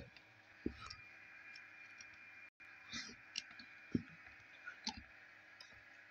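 Faint, scattered clicks and knocks from plastic toy dinosaurs being handled and set down on a wooden floor, over a faint steady high-pitched hum.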